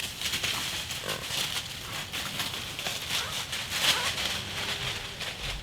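A whitetail buck vocalising close by, amid repeated crackling and rustling of dry leaves.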